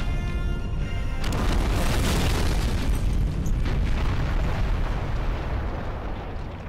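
A big explosion sound effect over music. The blast comes about a second in and rolls on as a long, heavy low rumble that slowly fades.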